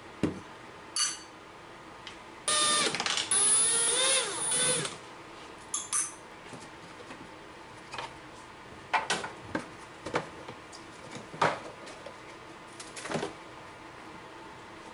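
A small electric motor whines loudly for about two seconds, its pitch rising and then falling, followed by scattered knocks and clicks.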